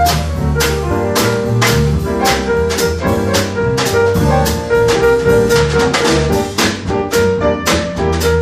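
Jazz-style music with a drum kit keeping a steady beat under sustained melodic instruments.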